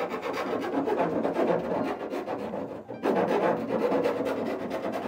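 Hand-sanding the edge of a freshly drilled hole in a Tesla Model X's body: rapid back-and-forth rasping strokes in two runs, with a short break about three seconds in.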